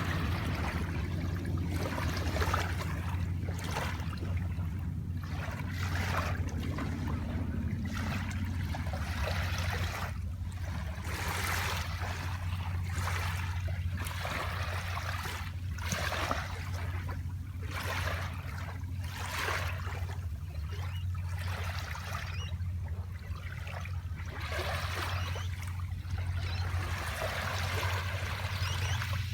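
Small waves lapping and splashing at the water's edge in irregular washes every second or two, over a steady low rumble.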